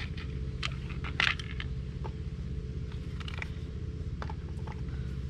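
Light clinks and taps of small mower parts and screws being picked up and handled, one sharper click about a second in, over a steady low hum.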